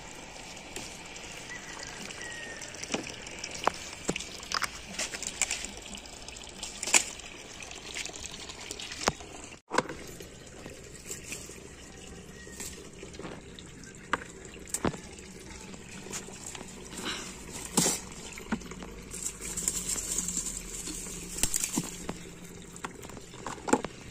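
Leaves rustling with irregular sharp snaps and clicks as brinjals and tomatoes are picked by hand off the plants.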